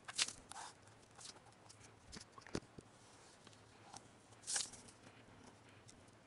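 Faint scratching of a pen drawing lines on a sheet of paper, in a few short strokes with light taps, the loudest scratch about four and a half seconds in.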